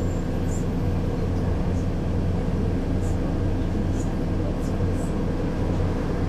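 Mercedes-Benz O 530 Citaro city bus engine running steadily with an even low hum, its pitch level throughout, with a few faint high ticks or rattles.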